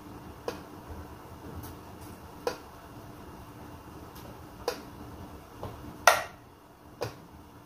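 Light sharp taps about every two seconds, the loudest a little past halfway, as dough balls and fingers are set down on the metal plate of a hinged dough press, over a faint steady hum.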